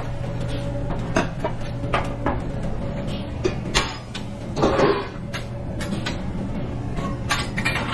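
Kitchen work sounds: scattered knocks and clicks of cookware and containers being handled over a steady low hum, with a louder clatter about four and a half seconds in.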